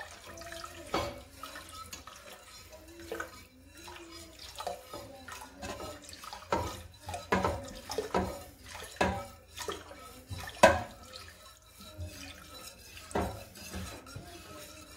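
Heavy cream pouring in a thin stream from a glass measuring cup into a stainless steel stockpot of soup base while a wire whisk stirs it, the whisk knocking and clinking irregularly against the pot.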